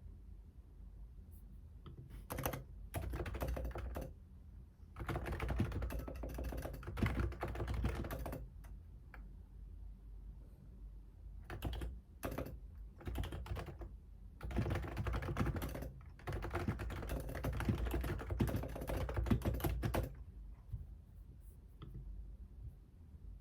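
Typing on a computer keyboard in bursts of rapid key clicks, with short pauses between the runs.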